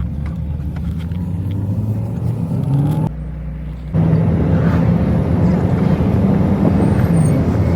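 Car engine and road noise while driving, a steady low rumble with the engine note rising slowly over the first three seconds. The sound drops abruptly about three seconds in and comes back louder a second later.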